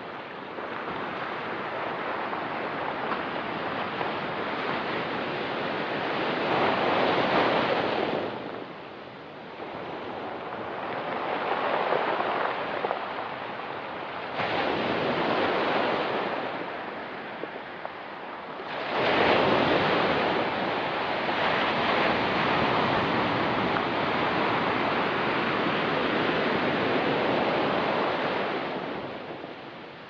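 Ocean surf breaking on a rocky pebble beach, in surges that build, crash and wash back every few seconds. The loudest wave comes in suddenly about two-thirds through and washes on for about ten seconds before falling away near the end.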